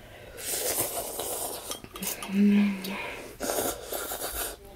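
A person slurping ramen noodles, then a short hummed 'mm' about halfway through, then slurping hot broth from a mug.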